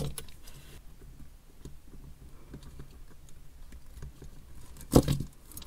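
Small clicks and taps as hands handle a plastic charging base and its wires on a silicone work mat, with one louder knock about five seconds in.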